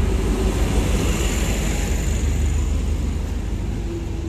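Diesel multiple unit (DMU) passenger train at the platform, slowly pulling in or just drawing up: a steady, heavy low diesel rumble under a hiss of wheel and rail noise, easing slightly near the end.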